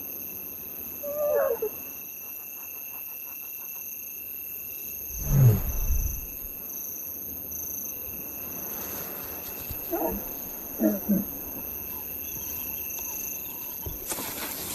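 Lioness giving soft, low contact calls to her hidden cubs to tell them it is safe to come out. One low call falls in pitch at about five seconds in, with a few higher, wavering calls about a second in and again at about ten seconds.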